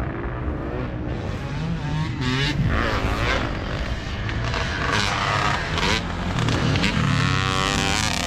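Dirt bike engine revving hard, its pitch climbing and dropping again several times as it accelerates and shifts, over a steady low rumble.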